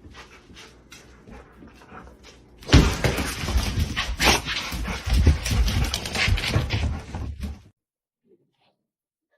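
A dog's sounds. Faint clicks come first, then a loud, noisy stretch begins about three seconds in and cuts off suddenly near eight seconds.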